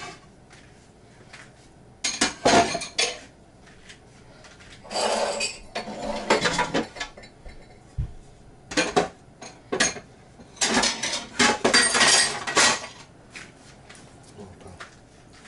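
Dishes and cutlery being handled in a kitchen: four bursts of quick knocks over about ten seconds, each lasting one to two seconds.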